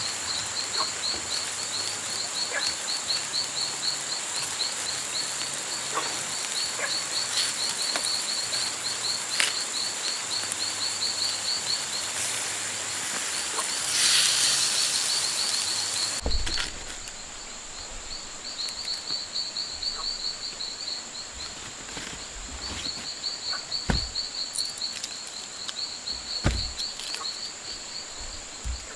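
Rainforest ambience: a steady, high insect-like drone with a fast, evenly pulsing chirp call over it, and scattered light taps and knocks. Just past the middle a louder rush of hiss swells, then the sound changes abruptly.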